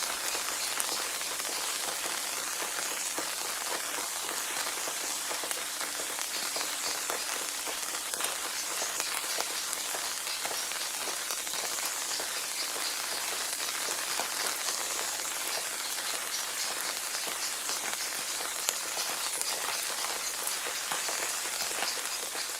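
Steady rain falling on a surface, an even hiss dotted with many individual drop ticks.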